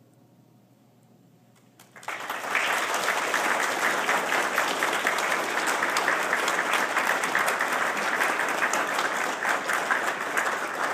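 After about two seconds of near silence, a roomful of diners starts applauding and keeps up steady clapping, applause at the end of a dance performance.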